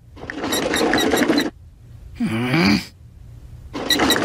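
A rapid rattling sound effect lasting about a second and a half, then a short voice-like groan falling in pitch. The rattling starts again near the end.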